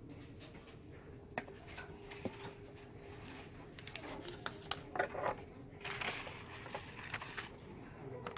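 Small handling noises of a hospital meal tray: plastic cups, a pudding cup and a paper tray ticket clicking, tapping and rustling. The loudest bunch comes about five to six seconds in. A faint steady hum runs underneath.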